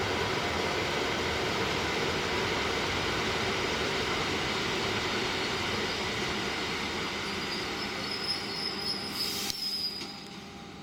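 ET2M electric multiple unit running slowly into the station with steady rolling and motor noise, and a high brake squeal in the last few seconds. The noise drops off suddenly near the end.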